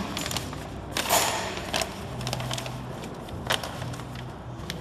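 Clear plastic packaging film crinkling and rustling in bursts as it is handled and fed through the rollers of a liquid packing machine, with a low steady hum underneath.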